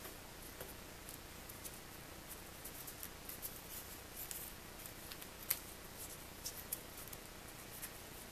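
A narrow paper strip being folded and creased by hand: faint crinkling and small crisp ticks, busiest in the middle, with the sharpest snap about five and a half seconds in.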